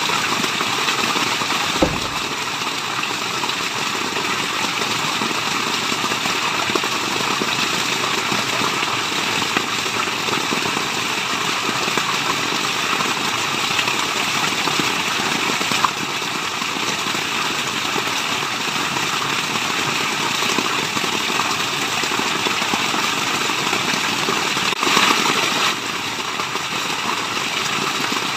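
Steady, even rush of water, as from a waterfall, with no pauses. There is a brief click about two seconds in and a slightly louder surge a few seconds before the end.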